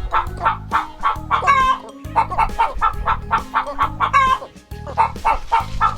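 Upbeat background music with a steady bass, overlaid with hen clucks that repeat in time with the beat and a short rooster-like crow about every two and a half seconds.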